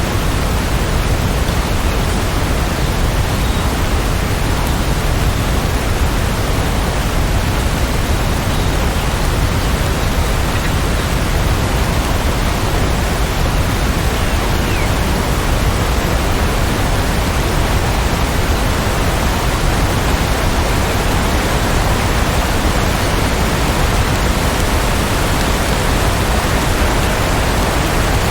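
Steady rain falling, an even, unbroken hiss with no thunderclap or other event.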